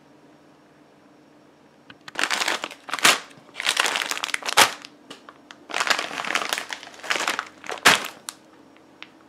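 Plastic frozen-vegetable bags crinkling as they are handled and set down. The crinkling comes in several bursts starting about two seconds in, with a few sharper crackles, and stops about eight seconds in.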